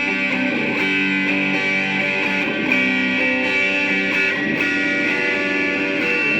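Electric guitar played through a Joyo AC Tone JF-13 overdrive pedal, sustained chords ringing and changing about once a second.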